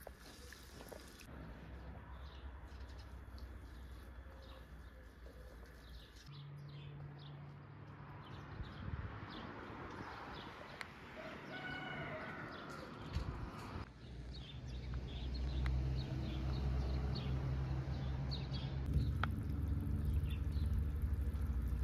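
A rooster crows once, about halfway through, over a low steady rumble and scattered small clicks. The rumble grows louder in the second half.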